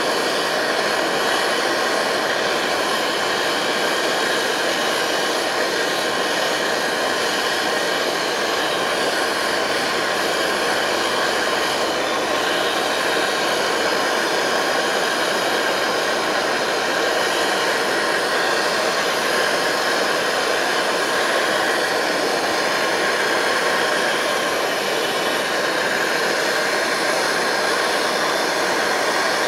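MSR Dragonfly white-gas stove burning at full flame under a pot of water, a loud, steady rushing hiss that does not change.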